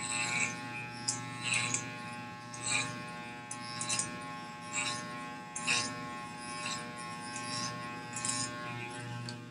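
Corded electric hair clipper buzzing steadily while cutting hair over a comb, with a short crisp rasp about once a second as the blades pass through the hair. The buzz stops at the end.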